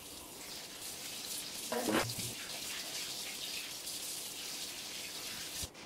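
Kitchen tap running steadily into the sink, a constant water hiss that stops abruptly near the end.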